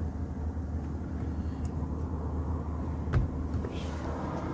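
A steady low hum with one sharp click about three seconds in, as a tool pushes on the spring catch behind a steering-wheel airbag to release it.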